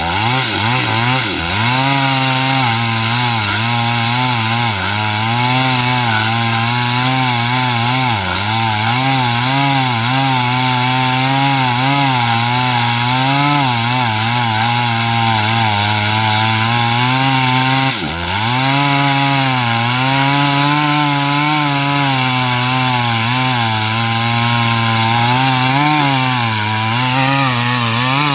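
Stihl MS 250 two-stroke chainsaw running at high revs under load, cutting wood, its pitch wavering as the chain bites. The revs dip sharply once about two-thirds of the way through and quickly recover.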